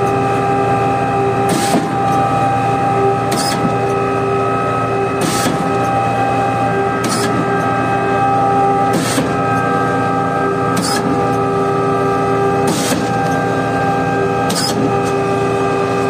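Putzmeister 49-5 truck-mounted concrete pump running with a steady mechanical hum and whine, broken by a sharp knock about every two seconds as the pump changes stroke. The crew blames low accumulator pump pressure.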